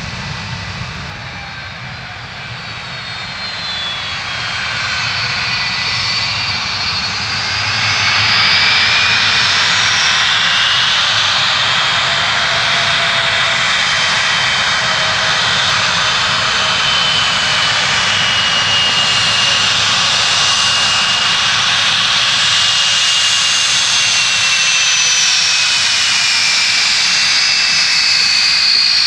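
Boeing 757-2G5 airliner's turbofan engines running on the runway, a loud rush with high whining tones that drift slowly in pitch. It grows louder from about two seconds to eight seconds in, then holds steady.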